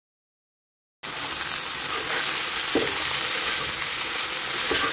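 Silence for about a second, then chopped jilmil greens frying in hot oil in a metal kadai: a loud, steady sizzle. The metal spoon stirring them gives the odd scrape and knock against the pan.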